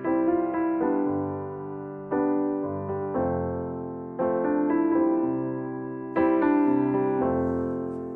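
Background piano music: slow chords struck about every one to two seconds, each ringing out and fading.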